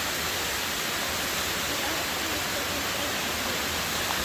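Steady hiss of rushing water.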